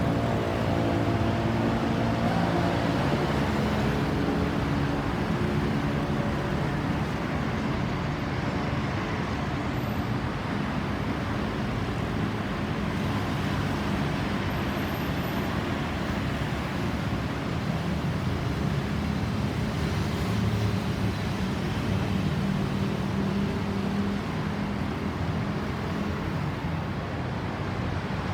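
Steady road traffic: vehicle engines and tyre noise, with an engine note swelling in the first few seconds and again a little past the middle.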